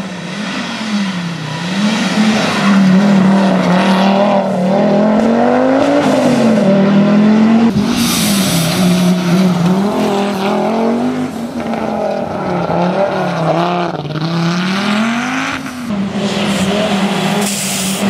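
Audi quattro rally car's turbocharged five-cylinder engine driven hard on a stage, revving up and dropping back again and again through gear changes.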